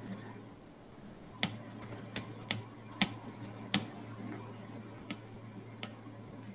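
About seven sharp, irregularly spaced taps on a tablet touchscreen as the drawing is edited, over a steady low hum.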